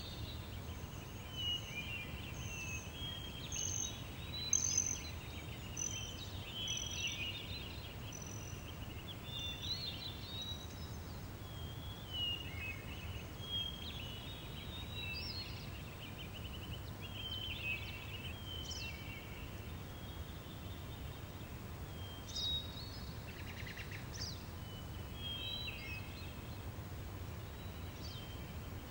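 Outdoor ambience of several small birds chirping and singing in short, overlapping phrases over a steady low rumble.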